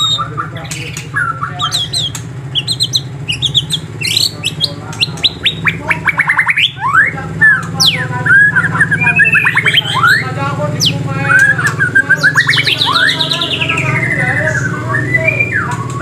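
Several birds chirping and calling together: quick chirps, fast runs of whistled notes and rising and falling sweeps, over a steady low hum.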